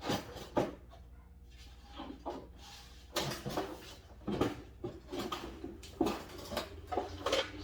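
Irregular knocks, clicks and rattles of a Jeep Wrangler TJ's front fender and its fittings being worked loose and handled during removal, several sharp hits spaced a second or so apart, most of them in the second half.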